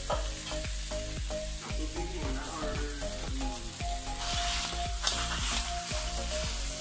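Cooked rice sizzling in a hot oiled pan while a slotted metal spatula stirs and scrapes it, with frequent clicks of the spatula against the pan.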